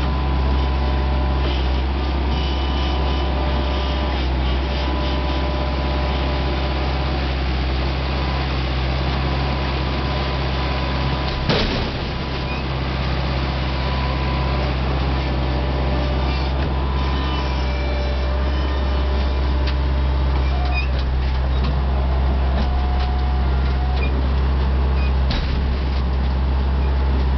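A heavy engine running steadily at constant speed with a deep hum. A single sharp thump sounds about halfway through.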